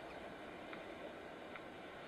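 Faint steady background hiss with three faint short ticks.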